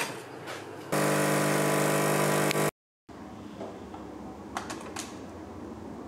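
De'Longhi ECP-series espresso machine's vibratory pump buzzing steadily for about two seconds as water is flushed through the brew head into a steel pitcher, starting about a second in and cut off abruptly. It is preceded by a sharp click, and is followed by a few light knocks and rustles.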